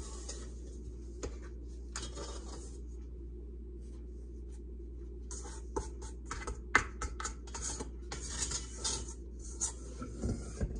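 Sourdough bread dough being scraped and worked out of a metal stand-mixer bowl onto a floured board: intermittent scraping and rubbing against the bowl, with one sharp knock about two-thirds of the way in.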